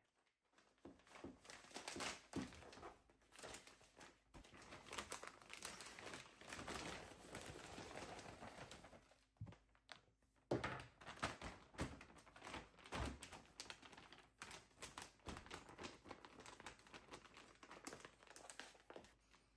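A plastic filter patch bag crinkling and rustling quietly as moist sawdust substrate is emptied into it from a plastic bin and the bag is folded over. A few light knocks come through it.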